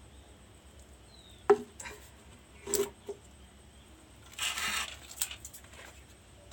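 Handling noise from an opened induction cooktop: a sharp knock about one and a half seconds in, another near three seconds, then a short scraping rustle and a click towards the end.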